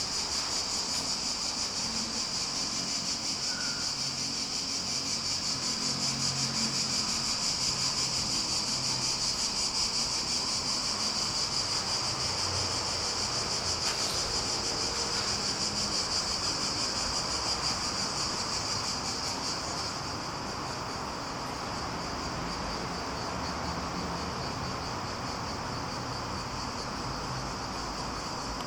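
A steady, high-pitched shrill drone from a chorus of insects, which drops slightly in level about twenty seconds in.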